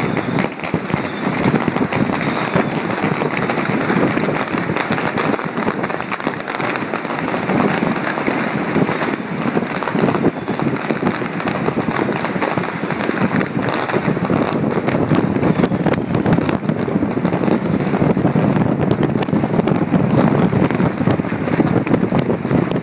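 Dense, unbroken barrage of fireworks and firecrackers going off all over a city. Countless bangs and pops run together into a continuous crackle with no pause.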